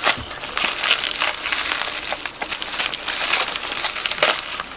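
Packaging crinkling and crackling as it is handled and pulled open by hand, a continuous run of small crackles.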